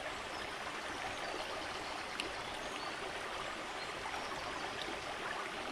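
Shallow, rocky woodland river flowing: a steady, even rush of running water.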